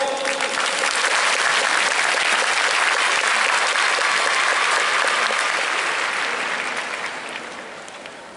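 Large audience applauding, many hands clapping at once, the clapping dying away over the last couple of seconds.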